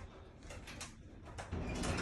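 Wind buffeting a phone's microphone, with scattered light clicks of handling; the wind gusts louder about one and a half seconds in.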